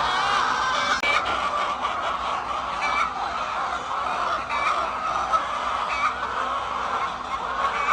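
A large flock of hens clucking and calling together as a steady chorus of many overlapping voices, with a sharper single call rising above it every second or so.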